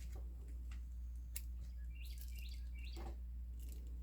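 A few faint bird chirps over a steady low electrical hum, with a couple of light clicks from small objects being handled.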